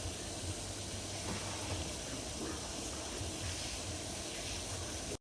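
Pan of water with mimosa roots boiling: a steady hiss.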